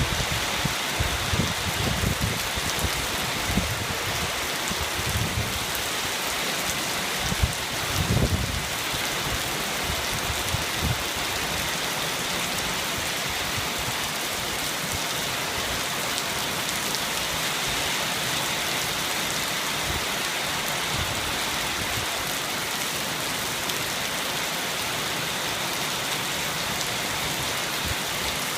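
Steady heavy rain falling, an even hiss throughout. Low thuds come and go over roughly the first ten seconds.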